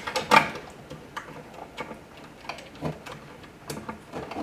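Irregular light clicks and knocks, about a dozen over a few seconds, as power-supply cable connectors are popped off inside a NAS chassis.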